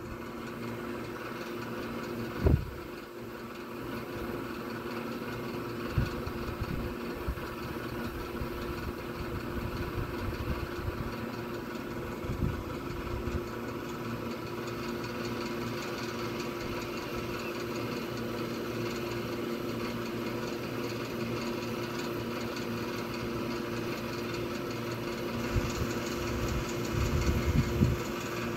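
A machine running steadily with an even hum. A few brief low thumps, the loudest about two seconds in, and some low rumbling near the end.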